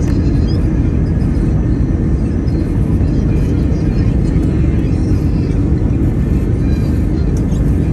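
Steady low cabin noise of an Airbus A321, the drone of its engines and airflow heard from inside the cabin.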